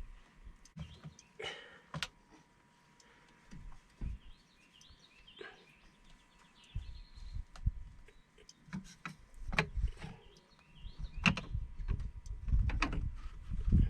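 Birds chirping over scattered clicks and knocks, with low rumbles that grow stronger near the end.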